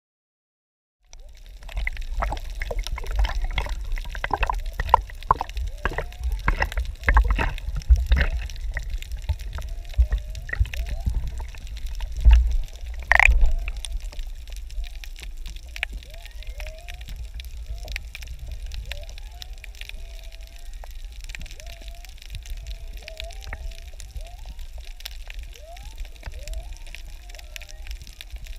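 Seawater splashing and sloshing around the camera, with knocks and a low rumble, as it goes under the surface from a kayak. Then a steadier muffled underwater hush over a coral reef, with faint short rising and falling tones recurring.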